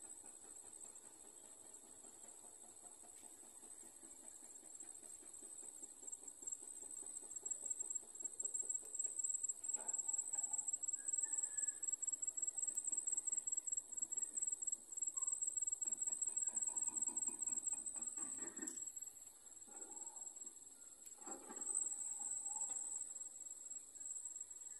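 Insects keep up a steady high-pitched drone that grows louder over the first several seconds. Now and then there are short rustles of leaves and vines being handled as sweet potato tops are picked.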